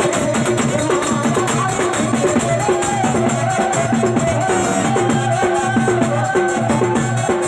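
Loud music with a steady drum beat and rattling percussion under a melody of short, quickly repeated notes.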